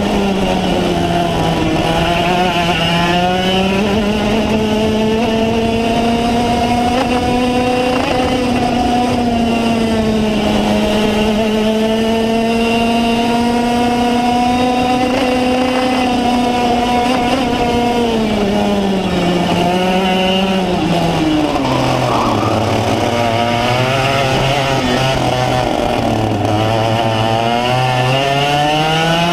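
Racing kart engine heard on board at high revs, its pitch holding steady on the straights and dipping briefly in the bends. About 22 seconds in the revs drop low and waver for several seconds, then climb again near the end.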